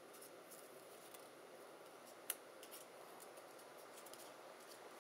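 Faint light clicks and taps of die-cut cardstock ephemera pieces being handled and set down on a cutting mat, with one sharper click a little over two seconds in.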